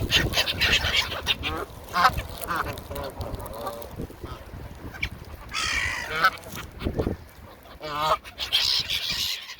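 Canada geese honking repeatedly while feeding, mixed with gulls calling: a run of short, separate cries, the loudest clusters about halfway through and again near the end.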